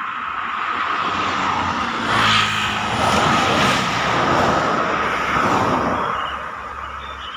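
Road traffic passing close by, with a heavy vehicle's engine and tyre noise swelling past about two seconds in and further passes after it, fading near the end.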